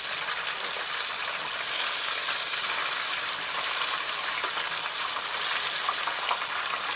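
Breaded whiting fish deep-frying in hot oil: a steady sizzle with a few small crackling pops.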